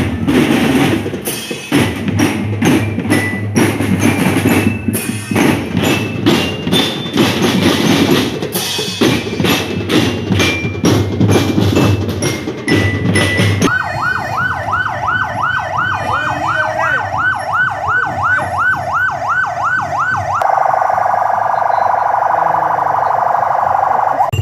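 Drum band music with steady heavy drumbeats and high bell-like notes, which stops about two-thirds of the way in. A siren then yelps, warbling rapidly at about three sweeps a second, and turns to a steadier tone near the end.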